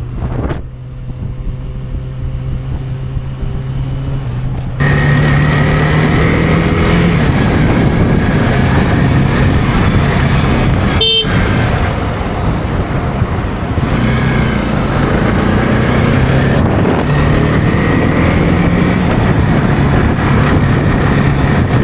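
Motorcycle ridden in traffic as heard from a helmet camera: a steady engine note, then, about five seconds in, louder wind rush with the engine revving up twice as the bike accelerates. A brief horn-like beep sounds about eleven seconds in.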